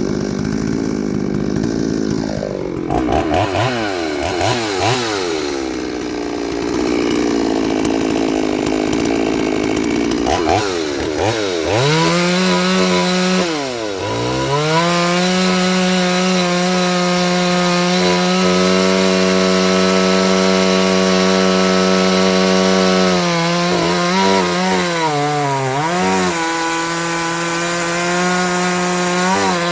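Two-stroke chainsaw running at high revs, its pitch dipping and climbing several times over the first ten seconds or so, then holding high and steady with a few short dips as the chain cuts into a log. The chain is freshly sharpened at 50/10/30-degree angles, with the depth gauges left at factory height.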